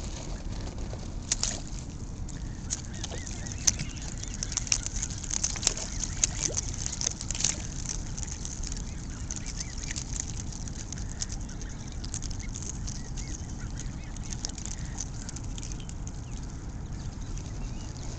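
A flock of Canada geese at the water's edge calling and honking, with many short sharp clicks and splashes, thickest in the first half, over a steady low rumble.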